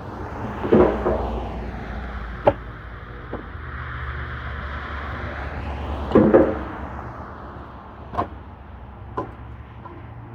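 Split firewood knocking as pieces are set and stacked, with two heavier thuds and several lighter clacks, while a vehicle passes on the road with a hiss that swells and fades over the first seven seconds.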